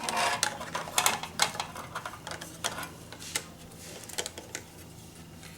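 Irregular light clicks and knocks of the opened Boss ME-80 multi-effects unit's casing and parts being handled, busiest in the first second and a half and sparser after, over a faint steady hum.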